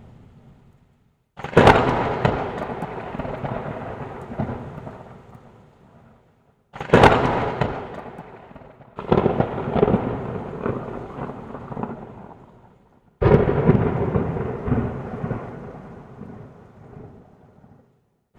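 Four claps of thunder, each starting with a sharp crack and rolling off into a long rumble that fades over a few seconds. The first and second are followed by moments of dead silence, and so is the last near the end, as if separate recordings were joined together.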